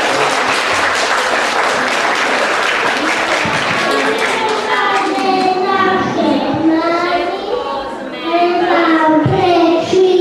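Audience applause for the first four seconds or so, then young children start singing a song together.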